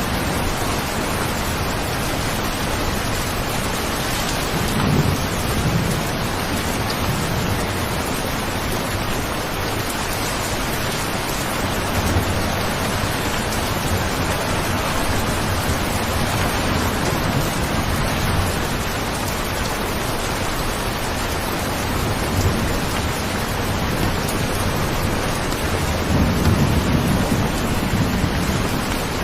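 Steady rain falling, an even hiss, with brief low rumbles about five seconds in and again near the end.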